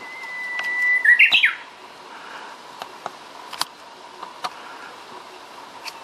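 Japanese bush warbler singing its hō-hokekyo song once: a long steady whistled note that swells in loudness for about a second, then a quick run of notes that jump up and down.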